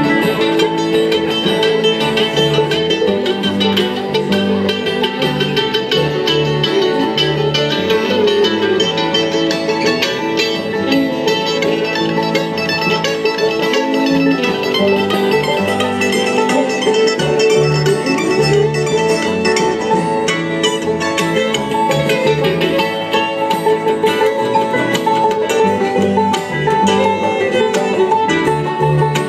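Live bluegrass band playing an instrumental break on fiddle, banjo, mandolin, acoustic guitar and upright bass, with the bass keeping a steady beat.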